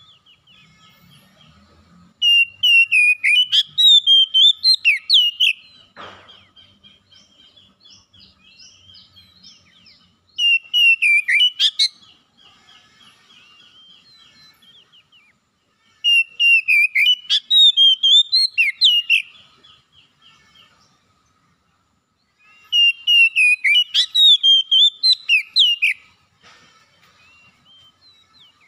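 Oriental magpie-robin singing in full voice: four loud bursts of rapid, varied whistled phrases that glide up and down, with softer twittering between them.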